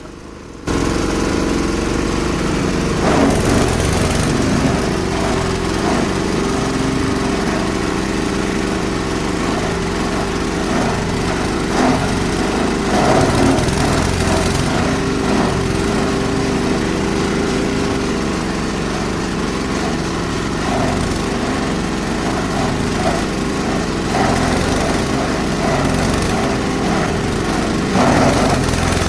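Diesel-powered chopper-grinder (8 HP diesel engine) running steadily while seaweed is fed through its blades. It starts abruptly just under a second in, with louder bursts of shredding about three seconds in, around thirteen seconds, and near the end.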